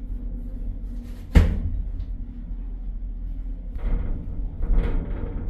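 A faulty lift gives one sharp, loud bang about a second and a half in, over a steady low rumble. Softer knocks follow near the end.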